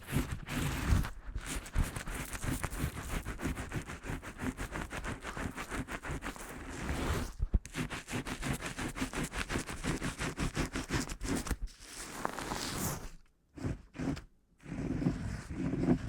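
Fast, regular scratching or scraping strokes, about six or seven a second, with a short pause about halfway through and two brief pauses near the end.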